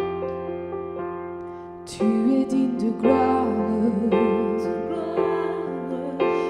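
Worship song music: sustained electric keyboard chords, joined about two seconds in by a louder melody line that wavers in pitch.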